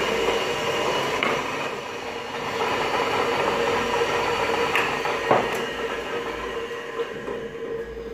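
Homemade metal lathe running unloaded: a 1.1 kW single-phase 220 V electric motor, taken from a pressure-tank water pump, spins the spindle through a V-belt. It gives a steady hum and whirr with a few sharp knocks, and begins to fade near the end.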